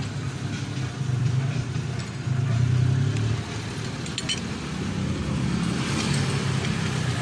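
Motorcycle engine running steadily, swelling louder for about a second between two and three seconds in, with a few light clicks about four seconds in.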